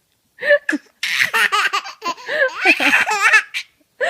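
A baby laughing hard in a long run of belly laughs. It starts after a short pause and stops shortly before the end.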